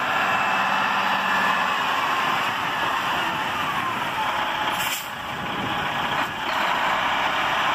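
Semi truck's Detroit Diesel Series 60 engine running, under a steady, dense hiss. A sharp click comes about five seconds in.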